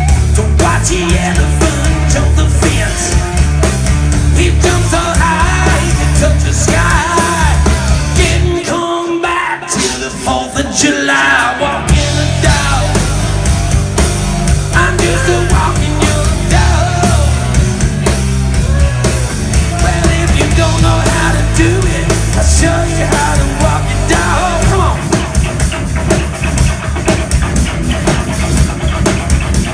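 Live rock band playing loud, with electric guitars and a drum kit. About eight and a half seconds in, the low end and drums drop out for roughly three seconds, leaving a thinner melodic line, then the full band comes back in.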